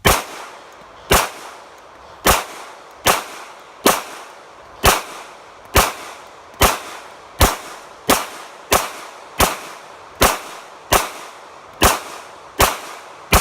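Sig Sauer P320 pistol fired in a string of about sixteen shots, each a sharp crack with a short ringing tail, at first about a second apart and quickening to under a second apart.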